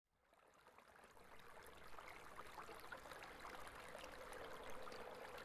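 Faint trickling, dripping water sound fading in from silence, a haze of small drips with a faint steady hum beneath it.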